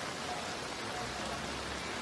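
Steady hiss of rain and floodwater running over a flooded street.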